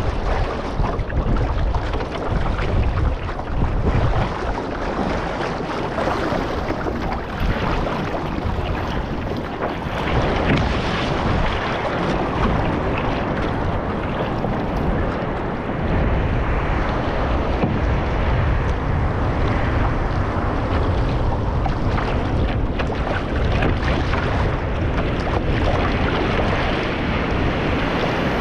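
Water rushing and splashing around a one-person outrigger canoe as it is paddled through ocean chop, with wind buffeting the microphone in a steady low rumble and surf breaking nearby.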